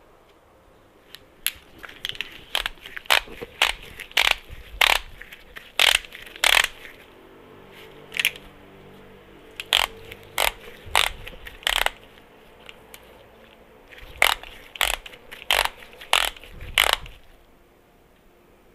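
Sharp metallic clicks of a socket wrench working the engine-case bolts of a 2004–2006 Yamaha R1, coming singly and in quick runs, with a short lull past the middle.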